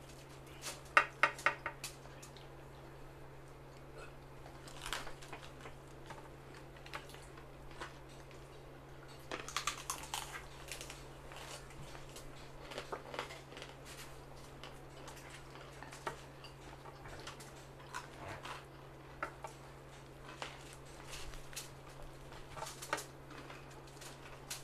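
Eating sounds at a shared table as food is picked up by hand: scattered clicks and light clatter. A quick run of sharp clicks comes about a second in, the loudest part, and another cluster about ten seconds in, all over a steady low hum.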